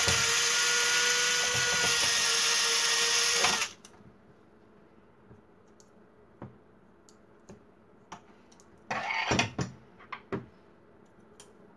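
Cordless electric screwdriver running steadily for about three and a half seconds, driving a screw out of a plastic toner cartridge housing. About nine seconds in it gives a second short burst of under a second. Small clicks and taps of the plastic parts being handled come in between.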